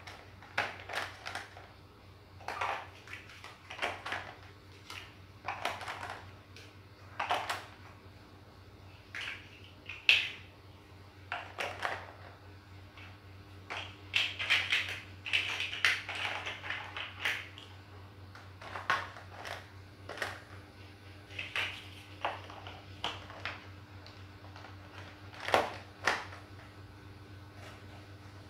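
Large plastic toy building blocks clicking and knocking as they are pressed together and handled, in irregular single clicks with a spell of denser clattering about halfway through as loose blocks are sorted.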